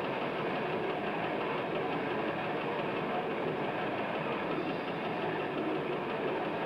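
Death metal band playing live: heavily distorted electric guitar and drums in a dense, steady wall of sound, muffled.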